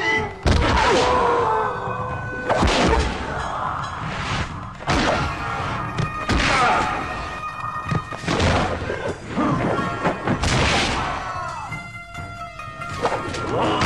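Action-film fight soundtrack: background music with loud punch and kick hit sound effects landing about every two seconds.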